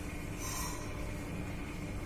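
Steady hum and hiss of a running aquarium pump and moving water, with a brief faint high hiss about half a second in.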